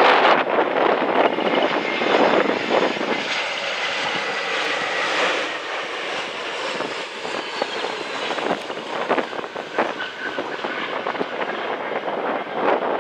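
Airbus A321 jet landing: a steady engine whine and rush as it comes over on final and touches down, with gusts of wind buffeting the microphone, loudest at the start and near the end.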